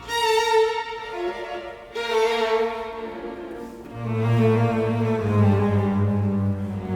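Background music of bowed strings: sustained violin notes, with a low cello line coming in about four seconds in.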